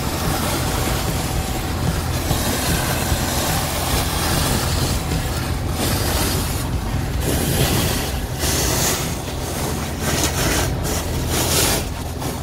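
Honda-engined Masport rotary vane vacuum pump running steadily, with air and water being sucked into a 50 mm suction hose as it picks up water and silt off a wet surface. The hiss of the suction swells and drops in uneven surges over the steady low hum of the engine and pump.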